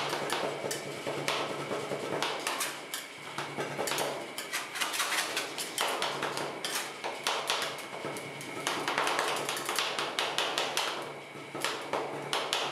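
Two metal spatulas rapidly chopping on a frozen steel ice cream roll plate, making quick metallic clacks several times a second with brief pauses. This is the stage where pineapple is chopped and mixed into the cream base.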